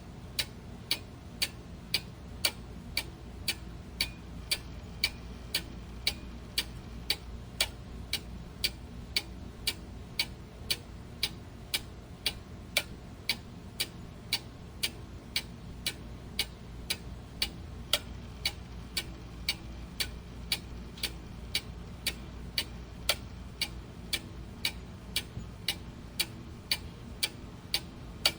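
Clock ticking steadily at about two ticks a second, each tick a sharp click, over a faint low background noise.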